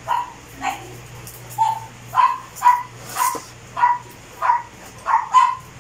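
Pug barking over and over, a run of about ten short barks at close to two a second.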